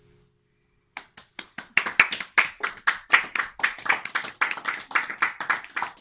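A small audience clapping by hand at the end of a song, starting about a second in, with separate claps from a few pairs of hands. Just before, the last acoustic guitar chord dies away.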